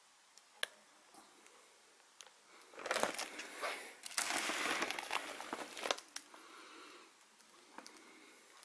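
Plastic shrink-wrap on firework cake boxes crinkling as the boxes are handled and turned over. There is one sharp click about half a second in, then a few seconds of rustling and crinkling that dies down near the end.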